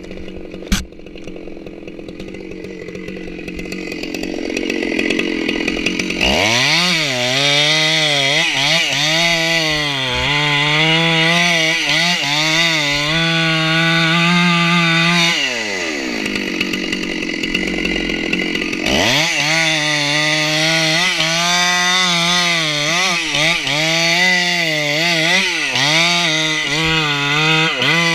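Stihl 064 hotsaw, a ported two-stroke chainsaw, running low with one sharp knock about a second in. It is throttled up about six seconds in and held at high revs, its pitch wavering under load as it cuts into redwood. It drops back toward idle for a few seconds in the middle, then revs up again and keeps cutting.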